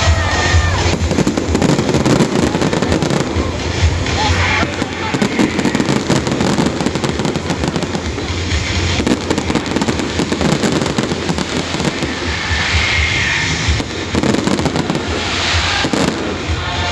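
Fireworks display: a dense, continuous run of bangs and crackles, with music playing alongside and voices in the crowd.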